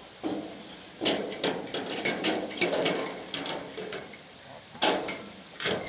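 Aluminium tent-frame poles knocking and clanking as they are handled and fitted together, a rapid run of metallic clicks and knocks, then two more sharp knocks near the end.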